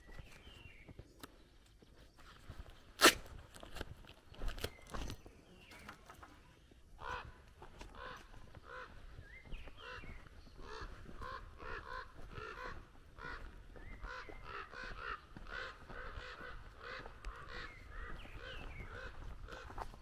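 Footsteps walking at a steady pace on a dirt lane, about two steps a second, with birds calling in the background. A single sharp click stands out about three seconds in.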